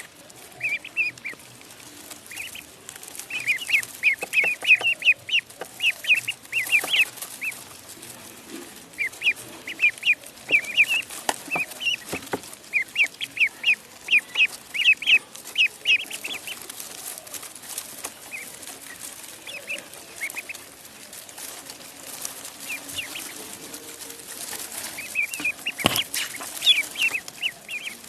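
Ducklings peeping: rapid bouts of short, high peeps, easing off for a while in the middle and picking up again near the end.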